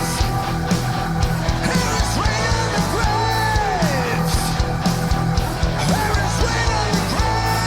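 Heavy metal music playing, with a pitched line sliding down about three seconds in.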